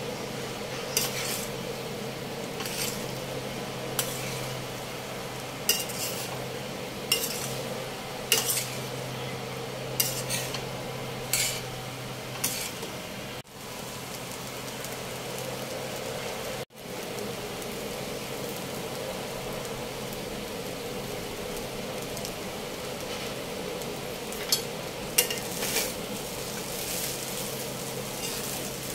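Rice stir-frying in a steel kadai with a steady sizzle, as a spatula scrapes and clinks against the pan about once a second, the strokes thinning out midway and returning near the end.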